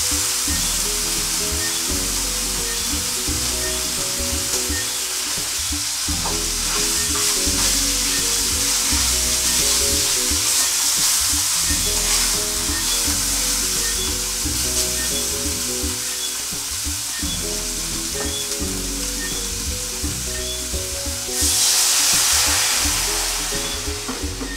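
Whole snapper frying in butter in a pan, a steady sizzle, with a louder burst of sizzling near the end as vegetables are tipped into the hot pan. Soft background music plays underneath.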